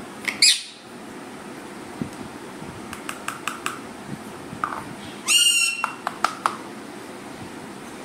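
Pet parrot giving a string of short chirps and clicks, with a brief high call near the start and a louder, longer call about five seconds in.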